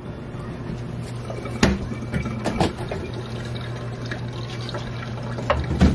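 Milk poured from a plastic gallon jug into a cup, with sharp knocks about a second and a half in and near the end as the cup and jug are handled on the counter.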